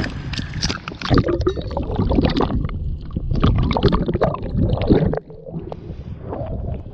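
Water sloshing and gurgling against the camera as it is dipped into the sea from the side of a boat. Irregular knocks and bumps of handling run over a low rumble, then settle down about five seconds in.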